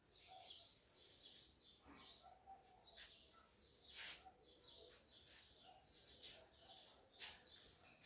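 Faint bird chirps repeating every second or so over quiet room tone, with a few soft knocks.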